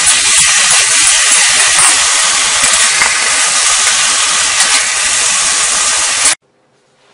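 Stir-fry of chicken and vegetables sizzling loudly and steadily in a hot wok, with a metal spatula scraping and clicking against the pan. It cuts off suddenly about six seconds in.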